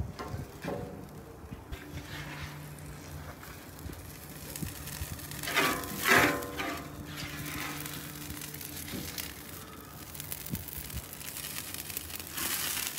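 Quiet background music, with a metal spatula scraping and tapping now and then on a ceramic-coated griddle top.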